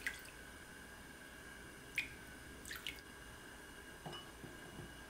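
A few light clinks of a metal spoon against a glass measuring cup, with small drips of liquid, as soy sauce and cooking wine are spooned in.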